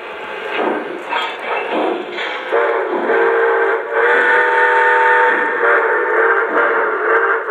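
Lionel O-gauge New York Central Hudson steam locomotive's onboard sound system: rhythmic steam chuffing, then about two and a half seconds in a multi-tone steam whistle blows and is held, with short breaks, over the chuffing.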